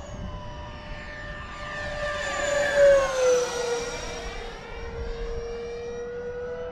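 Freewing Stinger 90's 90mm electric ducted fan whining as the jet makes a close pass. It is loudest about three seconds in, where its pitch drops as it goes by, then it holds a steady, lower whine as it flies off.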